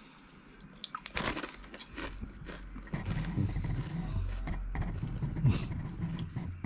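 Potato chips being bitten and chewed: a few sharp crunches in the first two or three seconds, then lower, steadier chewing.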